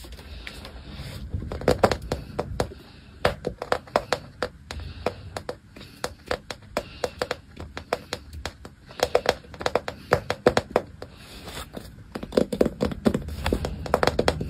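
Kitten at play: quick, irregular taps, clicks and scratches of small claws and paws scrabbling on a hard floor, in loose flurries.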